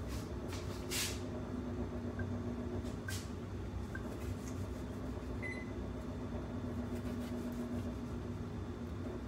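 A kitchen knife slicing through a tomato held in the hand: a few short, soft cutting strokes, mostly in the first second and once more about three seconds in, over a steady low background hum.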